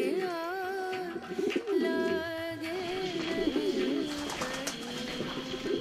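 Pigeons cooing: several low, wavering coos overlapping one another.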